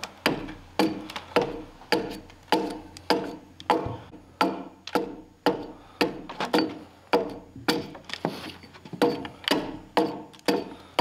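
Hatchet chopping into a round log to cut a corner notch, about two blows a second. Each blow is a sharp knock with a brief ringing tone from the log, and the blows are lighter for a moment about two-thirds of the way through.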